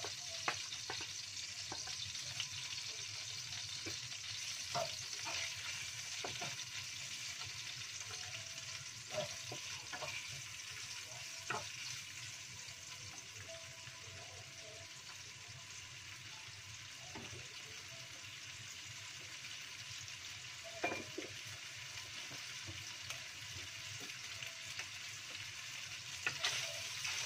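Chicken pieces frying in a wok with a steady sizzle. A wooden spatula stirs them, giving scattered knocks and scrapes that come more often near the end.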